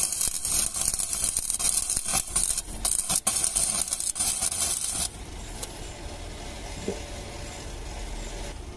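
Electric arc welding: the arc crackles and sizzles steadily while a tack weld is laid on the pipe fit-up joint, then cuts off suddenly about five seconds in, leaving a low steady background hum.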